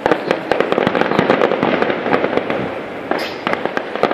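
Fireworks display: a rapid, dense run of aerial shell bursts, many sharp bangs a second over steady crackling, with a brief hiss about three seconds in.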